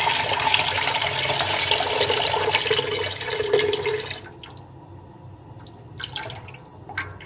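Full-cream milk pouring in a thick stream into a metal cooking pot already holding milk, splashing. The pour stops about four seconds in, followed by a few small drips and splashes.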